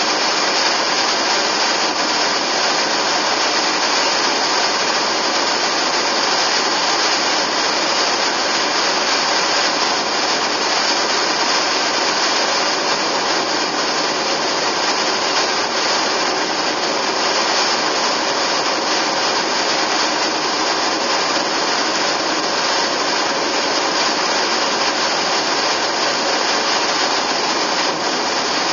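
Steady road and wind noise of a car driving at speed: an even hiss with no breaks or changes.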